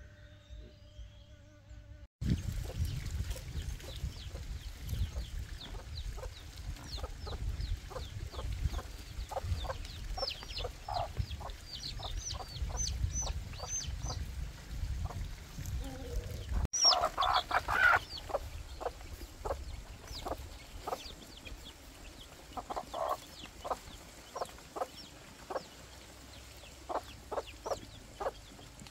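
Chickens clucking, with short high peeps from chicks about ten seconds in and again near the end. A low rumble runs under the first half, and a louder call comes about seventeen seconds in.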